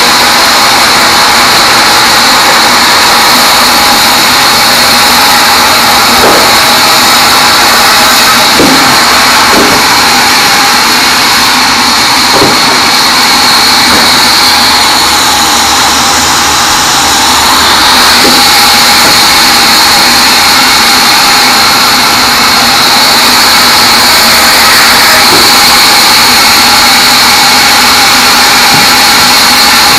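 Large sawmill band saw running steadily and loudly as small teak logs are fed through it, with a constant high whine over the machine noise. A few short knocks in the first half.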